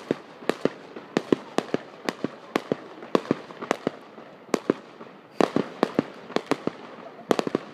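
Aerial fireworks going off: an irregular string of sharp bangs, two or three a second, bunching into quick rapid clusters about five and a half seconds in and again near the end.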